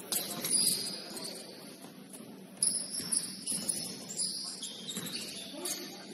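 Basketball shoes squeaking on the court floor: a run of short, high-pitched squeals that start suddenly and overlap, the loudest about two and a half seconds in, over low background noise.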